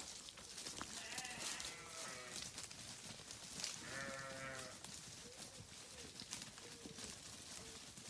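Sheep bleating: two long, wavering bleats, about a second in and about four seconds in, then a few fainter short calls.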